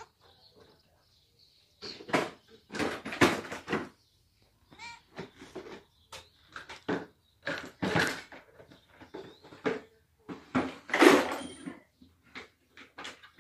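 Irregular short scraping and knocking noises close to the microphone, with one brief cat meow about five seconds in.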